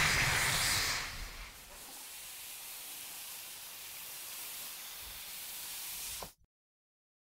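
A loud hissing rush that fades away over the first second and a half into a faint steady hiss, which cuts off abruptly about six seconds in.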